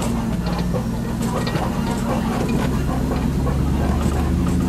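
Safari tour truck's engine running steadily as it drives, heard from on board the open-sided vehicle, with light clicks and rattles over the low engine hum.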